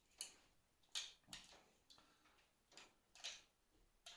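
Faint, irregular clicks of a plastic electronic fishing bite alarm being handled, about five in four seconds, with no alarm tone sounding: the alarm is not working.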